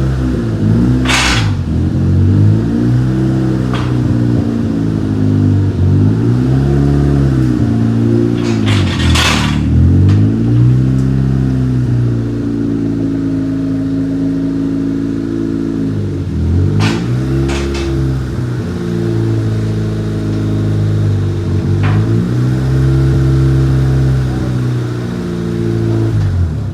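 Honda hatchback engine revved up and let fall back again and again through a freshly fitted 2.5-inch downpipe and straight-pipe exhaust with a Vibrant resonator, giving a deep exhaust note. A few brief bursts of hiss stand out near some of the rev peaks.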